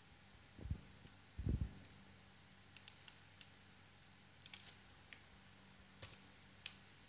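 Computer mouse clicking, about eight short sharp clicks, some in quick pairs like double-clicks, spread over the second half. Two dull low thumps come in the first two seconds and are the loudest sounds.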